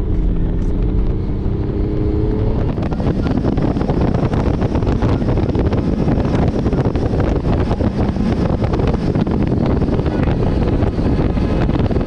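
Team car driving at speed. Its engine note is heard changing pitch for the first two seconds or so, then wind rushing and buffeting over the roof-mounted camera's microphone drowns it out.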